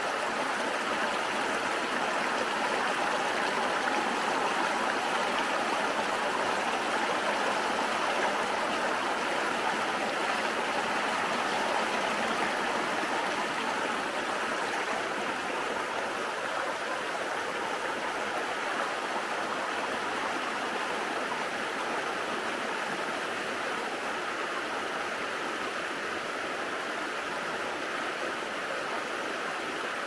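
Water rushing steadily down waterfall cascades in a forest burn.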